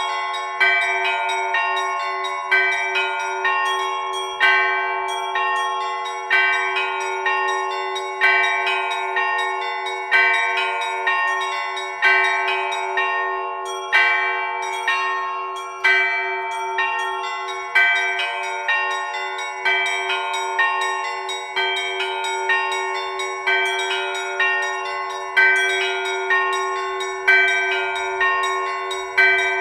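Russian Orthodox church bells ringing a full peal (zvon) driven by an automatic electronic bell-ringer. A heavier bell strikes about every two seconds, with smaller bells chiming quick patterns in between, over a continuous hum of the ringing bells.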